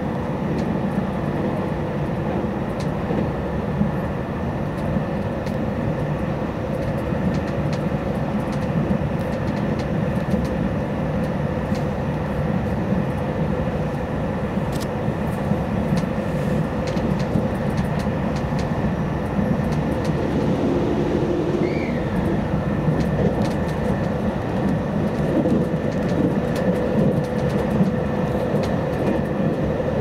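Cabin of a JR Hokkaido 789 series electric train running at speed: a steady rumble of wheels on rail with a held hum.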